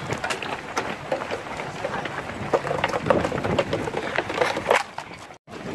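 Footsteps of a pack of runners on asphalt: many quick, irregular footfalls over a steady outdoor rush. The sound cuts out completely for a moment near the end.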